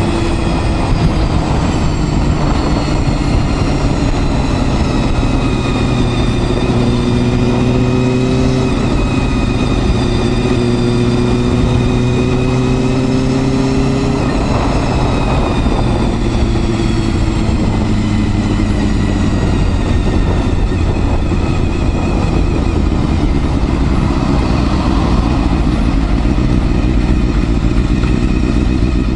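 Honda Hornet 250's inline-four engine running under way. Its note climbs slowly and then drops twice, at about 9 and 14 seconds in, with a steady rumble underneath.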